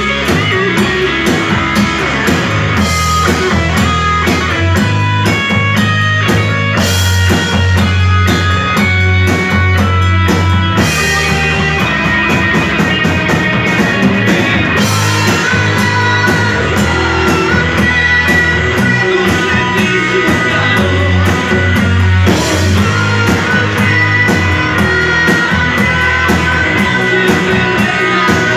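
Rock band playing live: electric guitar with bass guitar and drum kit, heard as a loud, steady mix.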